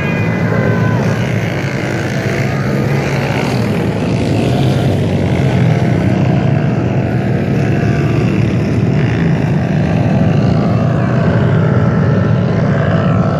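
Quad bike (ATV) engines running steadily, with a falling engine note at the very start.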